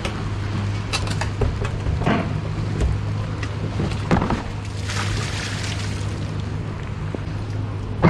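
A steady low drone, with scattered knocks and scuffs as plastic buckets are handled.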